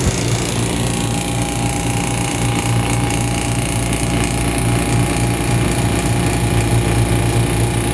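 Copeland Copelametic semi-hermetic refrigeration compressor running steadily with a low hum, pulling the suction side down into a vacuum. It does not shut off: the low-pressure switch is failing to cut it out.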